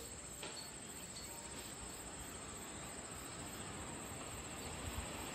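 Insects trilling in the trackside grass: a steady, high, faintly pulsing trill. Under it, a low rumble from a distant approaching train slowly grows toward the end.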